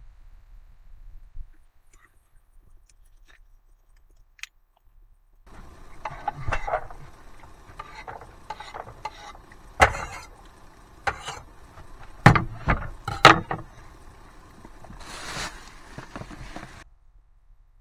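Irregular knocks and clatter of kitchen utensils and cookware being handled, starting a few seconds in, with a short rustle near the end.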